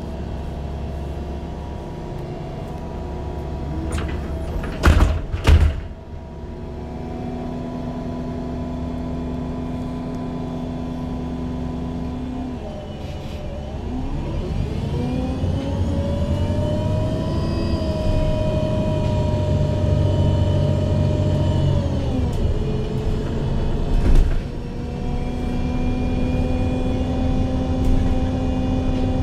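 The engine of a MAN Lion's City G CNG articulated bus running steadily, with a few loud knocks about five seconds in. About halfway through, its note rises, holds for several seconds and falls back to the earlier steady pitch.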